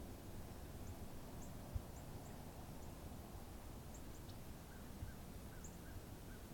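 Faint outdoor ambience: short, high-pitched bird chirps every second or so over a steady low rumble, with one soft thump a little under two seconds in.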